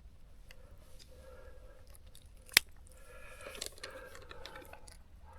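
Small handling clicks and rustles, with one sharp click about two and a half seconds in, over a faint steady hum.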